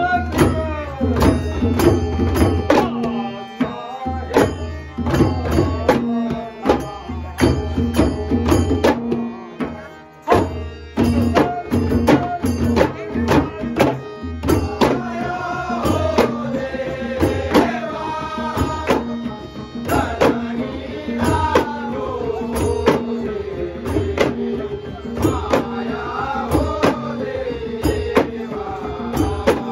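Ghumat clay-pot drums beaten together in a fast, even rhythm, with harmonium and a man singing a Shimga folk song at full voice. The singing is strongest in the second half.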